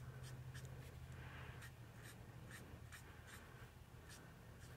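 Faint short strokes of a Stampin' Blends alcohol marker's tip on cardstock, about two a second, as ink is coloured in and blended, over a low steady hum.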